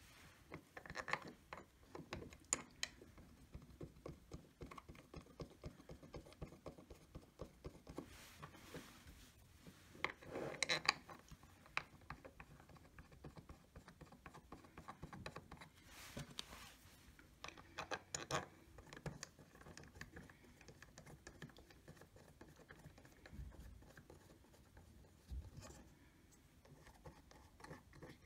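Small metal parts of a Rockit 88 delid tool being handled and screwed together on a wooden tabletop: scattered light clicks, taps and scraping, with louder clusters about ten and about seventeen seconds in.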